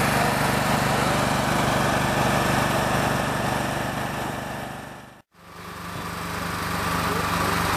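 Steady engine running without a break in pitch. About five seconds in it fades briefly to silence and comes back up.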